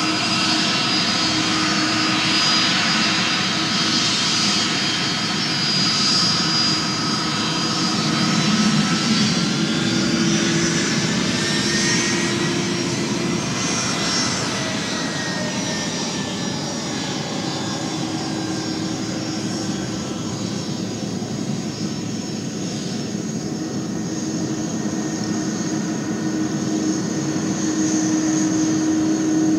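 Airbus A330 jet engines running with a steady, many-toned whine. About twelve seconds in, one whining tone slides up and then back down.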